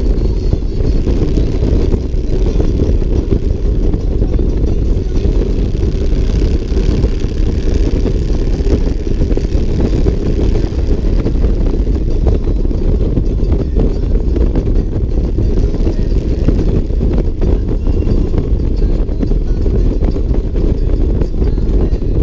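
Motorcycle riding at highway speed: steady wind noise on the microphone mixed with the engine running, with no letup.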